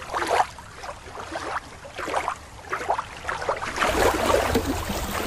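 Water lapping and splashing in irregular small strokes.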